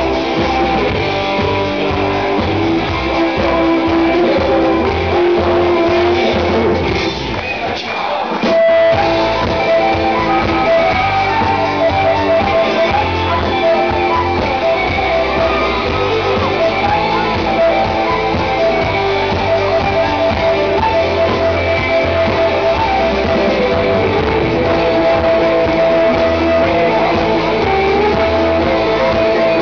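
Loud live Celtic rock band playing, with drums, bass guitar and fiddle and long held notes. The music thins for a moment about eight seconds in, then the full band comes back in.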